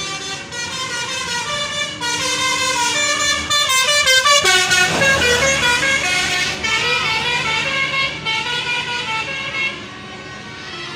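Bus 'telolet' multi-tone musical horn playing a tune of stepped notes, loudest about halfway through, over a steady low hum.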